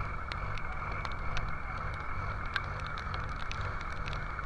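Boat engine running as a steady low rumble, under the rush of wind and breaking waves in heavy seas, with scattered sharp ticks.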